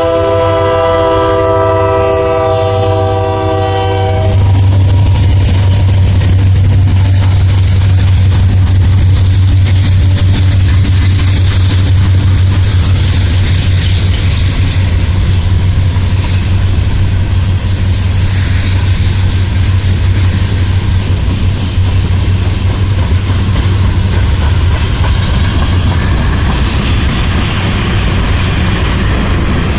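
Union Pacific diesel freight locomotives blowing a multi-chime air horn for about four seconds, followed by the loud, steady low rumble of the locomotives and freight cars passing close by.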